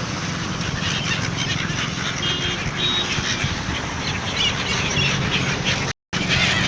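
A flock of gulls calling and squawking, many short overlapping cries over a steady rushing background noise. The sound cuts out completely for a moment near the end.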